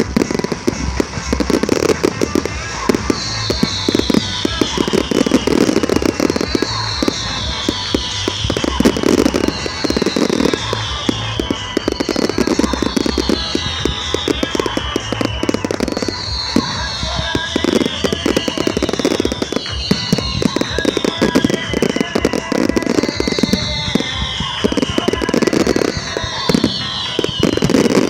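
Fireworks display: dense crackling and bursting shells go off continuously over accompanying music with a steady bass beat. A falling whistle repeats about every two seconds.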